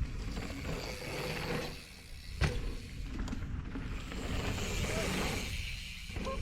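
Mountain bike riding down a dirt jump trail: a steady rumble of wind on the microphone and tyres on dirt, with one sharp knock about two and a half seconds in.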